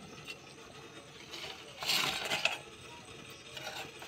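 Metal kitchen clatter and scraping as the aluminium kadai of finished chana masala is handled on the gas stove to take it off the heat. It comes in a few short bursts, the loudest about two seconds in.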